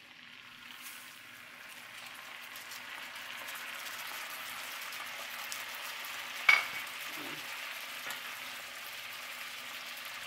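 Salmon fillets frying in foaming butter in a cast-iron skillet, the sizzle swelling louder over the first few seconds as lemon juice is poured into the hot fat. A single sharp clink stands out about six and a half seconds in.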